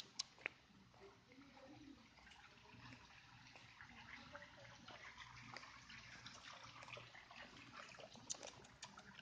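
Near silence: a faint crackling rustle of dry fallen leaves, with a few sharp clicks just after the start and again near the end.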